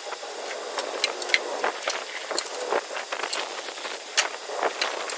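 Footsteps crunching on gravel, irregular sharp steps about two or three a second over a steady outdoor hiss.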